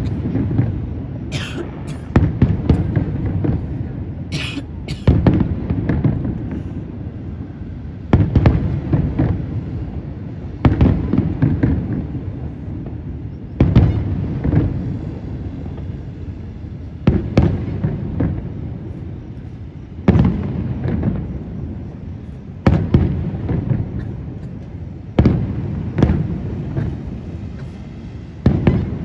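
Aerial fireworks display: about a dozen shells bursting with sharp bangs every two to three seconds, each bang trailing off in a low rumble as it echoes.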